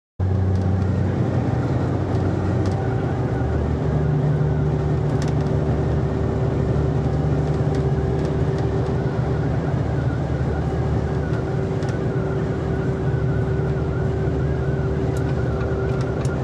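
Heavy truck's diesel engine running with steady road and tyre noise, heard from inside the cab while cruising at speed. The sound cuts in suddenly at the start, and the engine note shifts about three seconds in.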